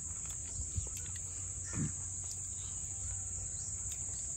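Steady high-pitched chorus of crickets, with a low rumble underneath and a few faint clicks.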